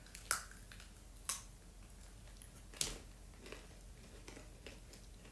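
Crisp, hard egg crackers being bitten and chewed: three sharp crunches in the first three seconds, then fainter little crunches and ticks. Faint overall.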